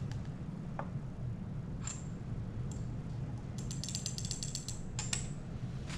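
Metal micro spatula clicking against a small glass test tube while a powdered sample is tapped into it: a few single clicks, then a quick run of light taps a little past the middle, and two more clicks near the end, over a low steady hum.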